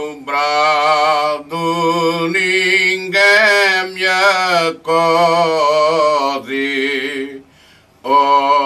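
Male choir singing cante alentejano unaccompanied: slow, drawn-out phrases, with a lower part holding steady notes under a higher melodic voice. The singing breaks off briefly near the end, then the voices come back in together.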